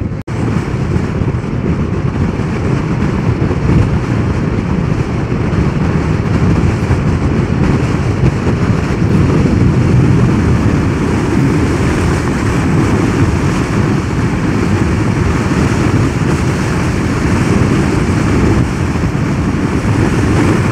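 Steady wind rush over the microphone and tyre noise from a Zero DSR electric motorcycle riding along a road, with no engine note.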